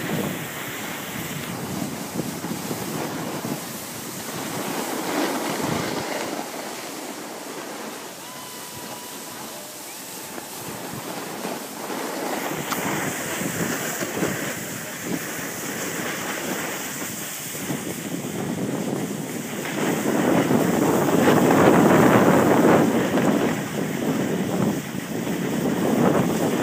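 Wind rushing over the microphone mixed with the steady scraping hiss of sliding down a groomed snow slope, swelling louder about twenty seconds in.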